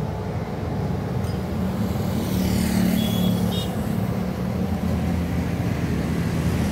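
A motorcycle passes close by, its engine growing louder to a peak about three seconds in and then fading, over steady road traffic noise.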